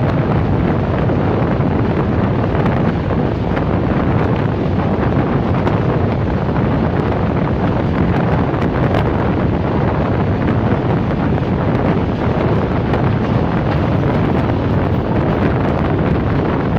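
Wind rushing over the microphone held out of the window of a Pakistan Railways express train running at speed, over the steady running rumble of the train.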